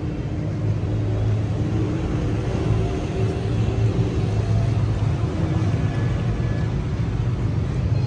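Steady low outdoor rumble, with faint humming tones drifting through it.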